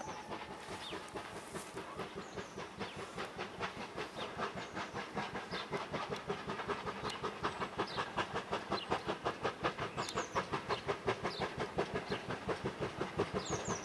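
GWR 4575 class 'small prairie' 2-6-2 tank locomotive 5541 working a passenger train under steam, its exhaust beats coming in a quick, even rhythm that grows louder as it approaches. Birds chirp faintly now and then.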